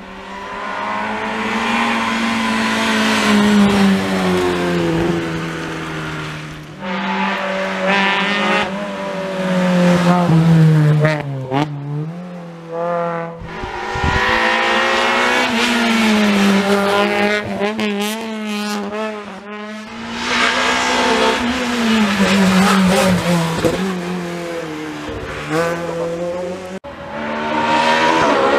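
Hill-climb race cars driven flat out up a twisting mountain road, their engines revving hard. The pitch climbs and drops again and again with the gear changes and the lifts for the bends.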